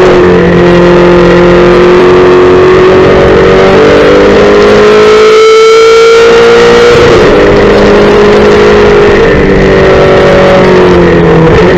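Race car engine at full throttle, heard from inside the cockpit, its pitch climbing steadily in third gear. About seven seconds in it drops with an upshift to fourth, and near the end it falls as the car slows for a corner.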